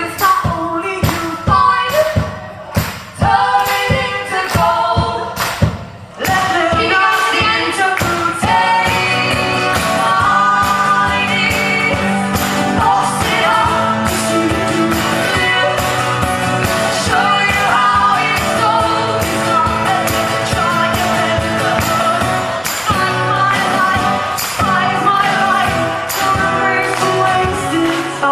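Live band singing a song. For the first six seconds the audience beats out the rhythm as human percussion, with sharp claps and bangs about twice a second. After that the singing and instruments carry on steadily until the song ends.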